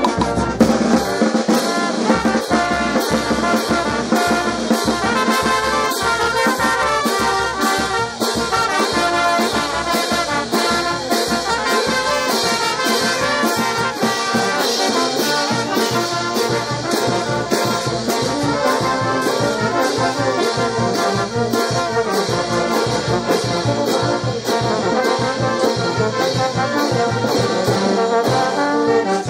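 A brass band playing a lively tune, with trumpets and trombones carrying the melody over a steady, evenly spaced drum beat.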